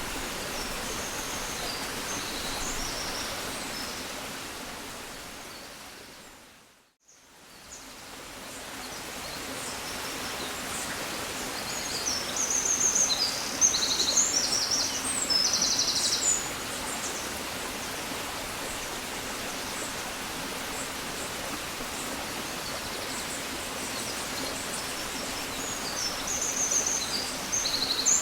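Birds chirping in short high bursts over a steady rushing background noise. The rush fades out to silence about seven seconds in, then fades back up; the bird calls come in a busy cluster a few seconds later and again near the end.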